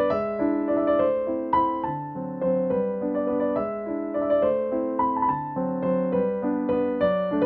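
Background piano music: a melody of held notes and chords changing at an even pace.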